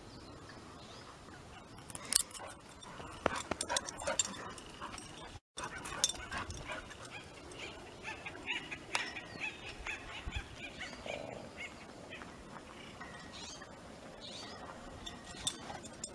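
Pit bull whining in short, pitched cries, with scattered knocks and scuffs. The sound cuts out briefly about five seconds in.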